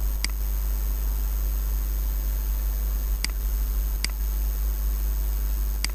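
Four clicks of a computer mouse button, irregularly spaced, over a steady low electrical hum and hiss.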